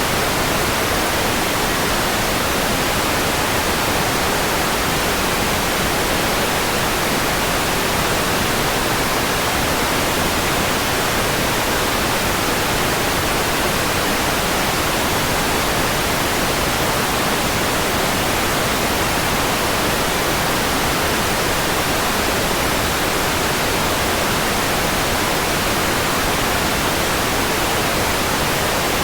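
Steady, unchanging white noise: an even hiss spread across the whole range, with no breaks or changes in level.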